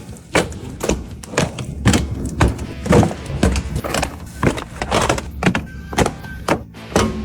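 A rapid series of irregular knocks and thuds, roughly two to three a second, over background music.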